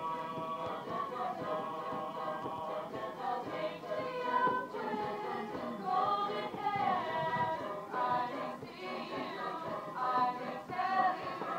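A small group of young singers singing together, amplified through outdoor loudspeakers, with long held notes and slow melodic glides.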